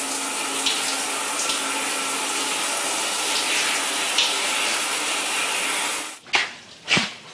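Shower water running steadily. About six seconds in it cuts off, and two short, sharp sounds follow.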